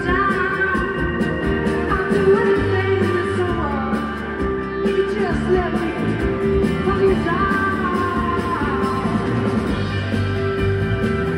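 Live band playing a slow rock song without lyrics for a while: drums, bass, electric guitar, grand piano and keyboards, with sustained and sliding notes over a steady low end.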